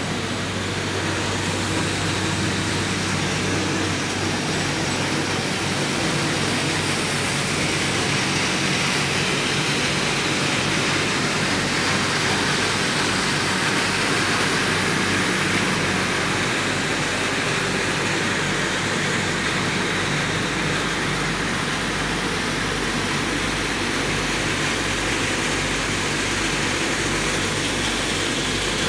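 Steady running noise of PCB recycling plant machinery, centrifugal blowers and electric motors moving air through large ducts: a constant rushing with a low, even hum.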